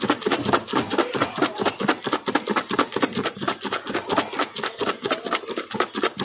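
French fries shaken hard in a lidded plastic tub to coat them in cheese seasoning, rattling and knocking against the sides in a fast steady rhythm of about six shakes a second.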